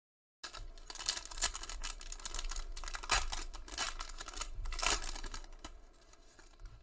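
The wrapper of a 2019-20 Panini Prizm basketball card pack crinkling and tearing as it is ripped open and pulled apart by hand, starting suddenly about half a second in as a dense run of crackles and fading near the end.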